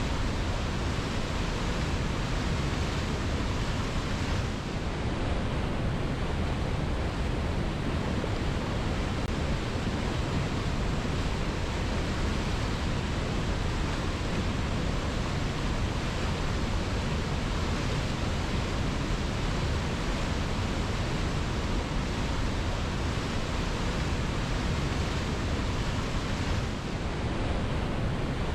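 Waterfall pouring steadily onto rocks: a constant, even rush of falling water, heaviest in the low end, with no breaks or separate splashes.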